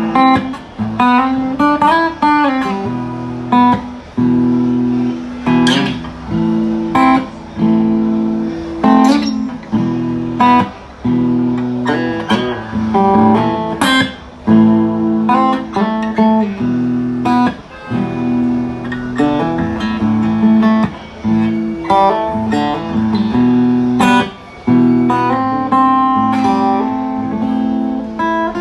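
Guitar music: plucked and strummed chords with sharp attacks, changing chords every second or two.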